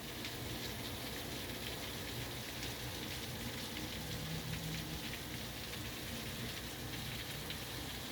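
Steady rain falling, an even hiss with the patter of individual drops.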